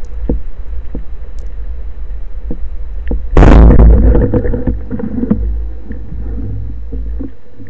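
Underwater: a steady low rumble of water against the camera housing, then about three seconds in a speargun fires, a sudden loud crack with a rushing tail that fades over a couple of seconds, the shaft striking a grouper in its den.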